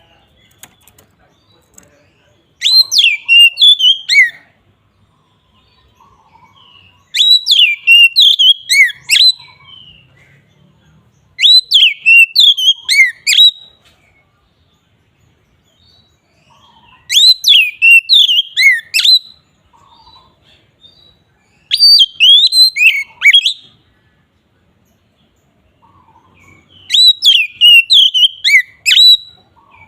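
Oriental magpie-robin (kacer) singing loud, open full song: six phrases of quick whistled notes that slide up and down, each about two seconds long, coming every four to five seconds.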